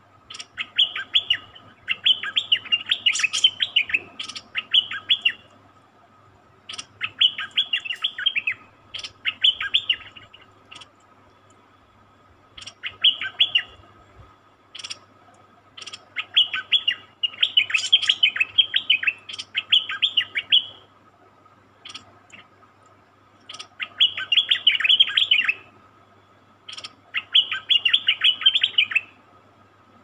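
Stripe-throated bulbuls calling in short phrases of rapid chirping notes. Each phrase lasts a second or two and they repeat with brief pauses, with single sharp notes between them.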